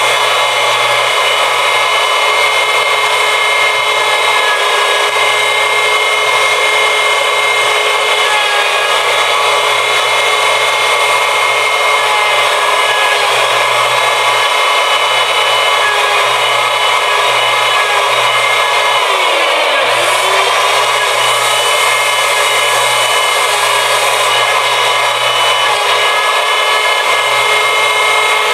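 Electric router with a 1/2-inch straight bit running at full speed, cutting passes across a black walnut slab: a steady high motor whine. About twenty seconds in the pitch briefly dips and comes back up.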